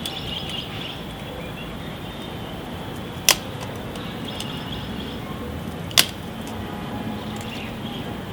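Two sharp metallic clicks about three seconds apart over steady background noise: nose pliers gripping and pushing down the spring-steel W clips that hold a motorcycle headlight.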